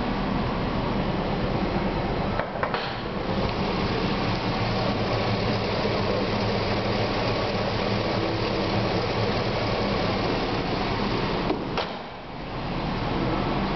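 2004 GMC Yukon Denali's 6.0-liter V8 idling steadily, with short dips in level about two and a half seconds in and again near the end.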